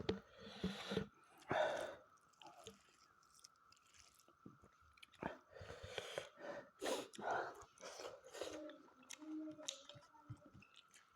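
Close-up eating sounds from a person chewing mouthfuls of mutton curry and rice. Irregular wet smacks and clicks of the mouth come at uneven intervals.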